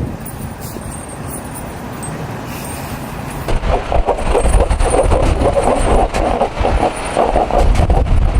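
Vehicle noise, a rushing rumble with irregular knocks that grows louder about three and a half seconds in.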